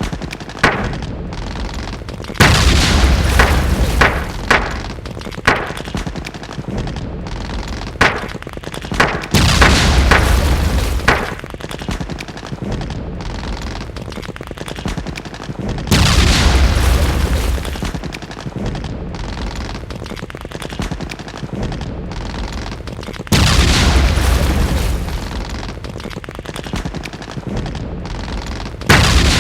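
Battle sounds of gunfire and explosions. A loud blast with a deep rumble comes about every seven seconds, with single shots and short bursts of gunfire in between over a constant noisy din.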